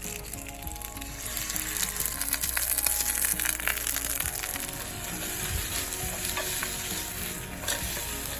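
Food sizzling and spitting as it fries in a pan over a wood fire, growing louder a couple of seconds in, with soft background music.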